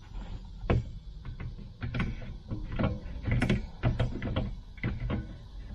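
A four-fan cooling fan panel being pushed and knocked into a vent window opening to wedge it in place: a series of irregular knocks, clicks and rattles.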